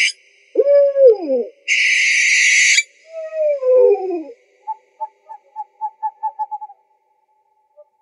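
Owl calls: a pitched hoot that rises and slides down, a harsh hissing screech of about a second, and another falling hoot, followed by a quick run of short notes, about four a second, that stops near the end. The screech is the loudest.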